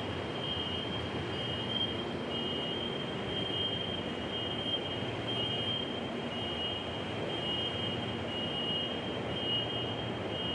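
Steady hum of a metro train standing at an underground platform, with a high electronic two-tone beep repeating about once a second throughout.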